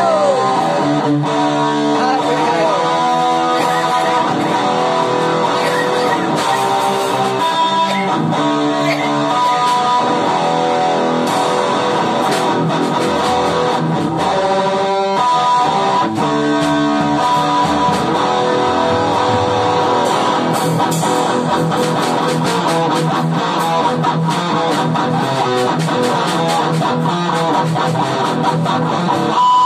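Electric guitar playing continuous black metal riffs without a break.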